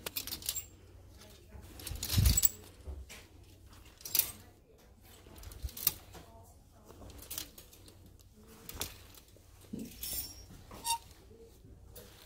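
Clear plastic clothes hangers with metal hooks sliding and clicking along a chrome clothing rack as garments are pushed aside one at a time, in irregular clusters of clicks and scrapes, with a heavier knock about two seconds in.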